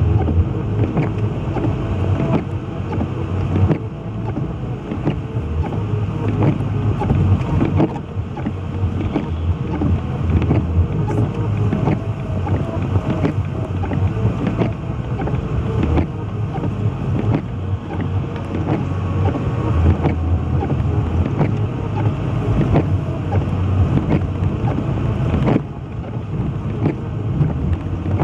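Car interior noise while driving on a snow-covered road: the engine and tyres running steadily, with many small knocks and clicks, and a slight drop in level near the end.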